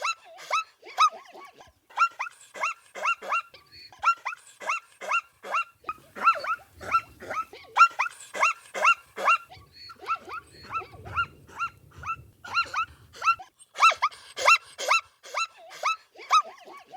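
Zebra barking: a rapid string of short, high yelping calls, each dropping in pitch, several a second, in bouts broken by brief pauses.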